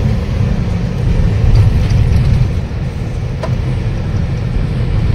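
Diesel truck engine and road noise heard from inside the cab while driving: a steady low rumble, swelling slightly for a second or two.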